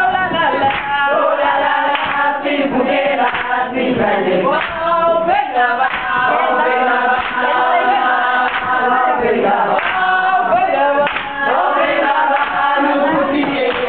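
A group of people singing together in harmony, with hand-clapping keeping time.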